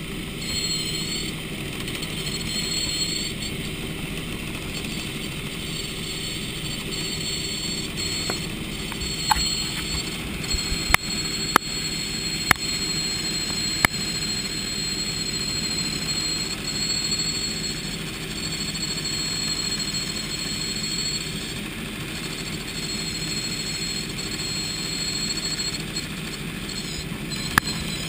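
Helicopter in flight heard from inside the cabin: a steady drone of engine and rotor with a constant high whine, broken by a few sharp clicks about ten to fourteen seconds in and once more near the end.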